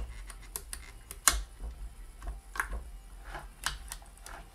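Scattered light clicks and knocks from hands working the opened Singer 401A sewing machine's mechanism, with one sharper knock about a second in.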